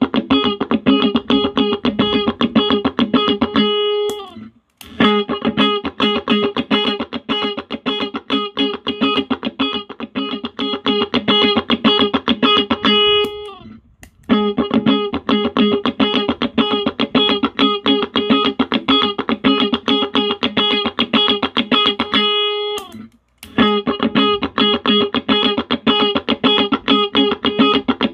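Electric guitar played through a compressor pedal into a small practice amp. A rapid picked phrase repeats about every nine seconds, and each pass ends on a held, sustaining note and a short break.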